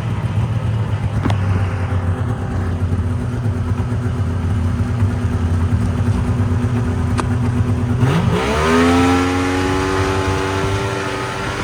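Snowmobile engine running steadily under way, then revving up sharply about eight seconds in and holding at the higher pitch.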